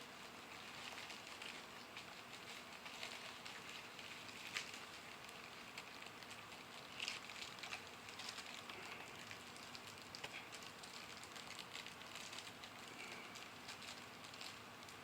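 Faint, scattered light clicks and taps of pistons and connecting rods being handled on a bench, with two sharper clicks about four and a half and seven seconds in.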